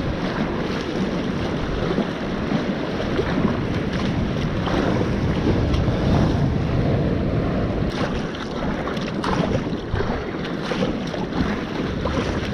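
Wind rushing over the microphone, mixed with water splashing and sloshing as a kayak is paddled through choppy sea, with the splash of the paddle blades dipping in now and then.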